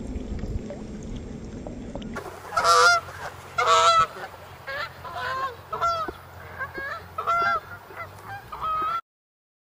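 A flock of geese honking, a quick run of about ten loud calls, some overlapping. Before the calls, for about two seconds, there is a low rushing noise. The calls cut off suddenly near the end.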